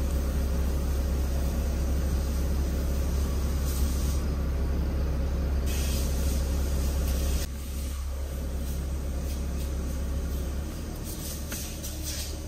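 Air-conditioning blower rushing steadily from the dash vents of a Suzuki Alto, over the low hum of its idling K10A three-cylinder engine, heard inside the cabin with the AC just switched on. The sound drops in loudness in two steps, about seven seconds in and again near eleven seconds.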